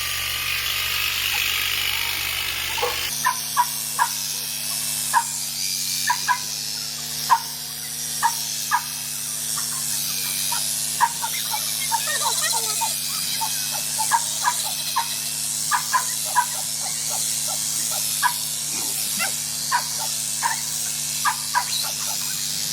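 Electric sheep shears running with a steady hum that settles in about three seconds in, with many short, high-pitched squeaks over it, about one or two a second.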